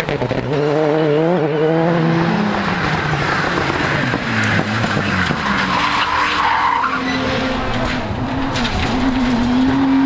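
Rally car engines at high revs, the pitch climbing through the gears in the first couple of seconds. Tyres skid and squeal through a corner in the middle. An engine holds a steady, wavering note near the end.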